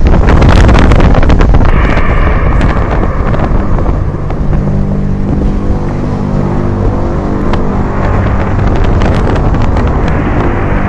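Wind buffeting the microphone with pops and crackles, and from about four seconds in a steady low droning hum with several overtones: the kind of sound posted as a strange sound from the sky.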